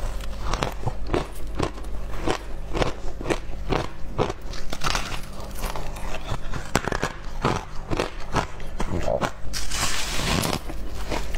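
Close-miked crunching of packed shaved ice being bitten and chewed: a steady run of crisp crunches, about two a second.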